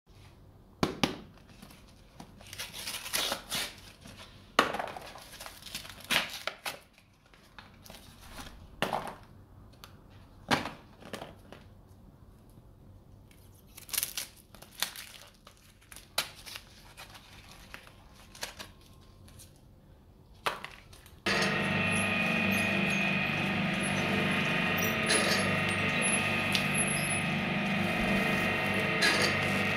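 Cigarette packs being unwrapped and opened by hand, their cellophane and paper crinkling and tearing in short rustles. About two-thirds of the way through, a twin-shaft industrial shredder's motor starts suddenly and runs steadily with nothing yet in its cutters.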